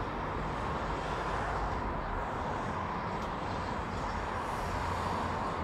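Steady outdoor city ambience: a continuous wash of traffic noise with no distinct events.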